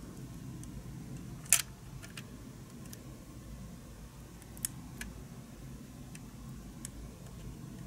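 Small plastic clicks and taps as a clear plastic engine cover is pushed into place on a Porsche 918 Spyder scale model. One sharp click about one and a half seconds in is the loudest, with a few fainter ticks after it, over a low steady hum.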